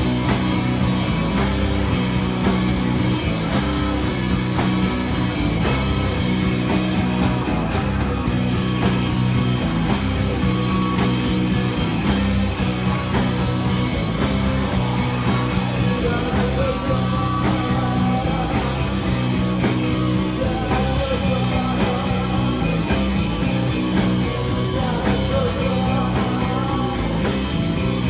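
A rock band playing live: a heavy, repeating bass riff and driving drums with fast, steady cymbal strokes, with guitar over them.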